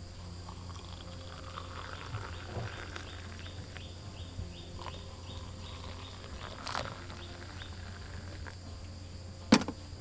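Steady high buzz of forest insects over a low, steady hum, which fits a distant excavator engine working. A run of short repeated chirps comes about three to six seconds in, then a click, and a sharp knock near the end is the loudest sound.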